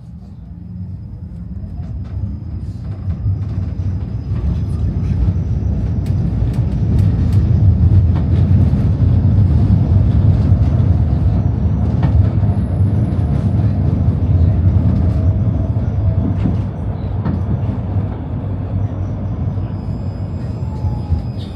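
Tram running along the rails: a heavy low rumble with scattered sharp clicks and knocks from the wheels and track, growing louder over the first several seconds and easing off a little near the end.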